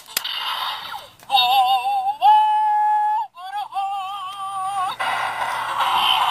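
Bandai DX Zyuoh The Light toy morpher's built-in speaker playing its wolf-form sound. A sharp click comes first, then a warbling electronic sung voice that holds one steady note briefly and warbles again, and music takes over about five seconds in.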